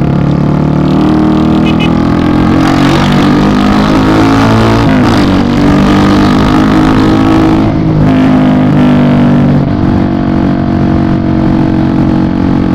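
Yamaha Fazer 250 single-cylinder motorcycle engine running under way through a loud exhaust. Its note dips and climbs again about five seconds in, and shifts once more near the end.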